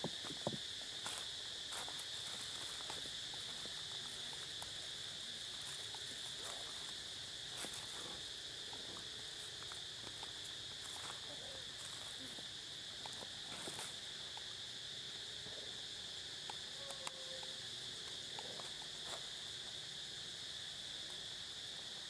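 Steady high-pitched drone of an insect chorus, with scattered crackles and rustles of dry leaf litter and a few short faint squeaks.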